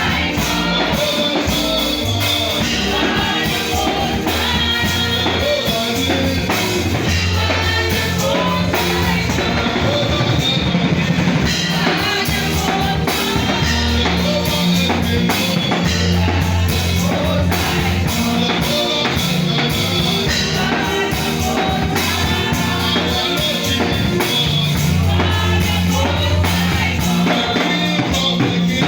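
Loud live band music with a drum kit, guitar and a held bass line changing note every second or two, with singing over it.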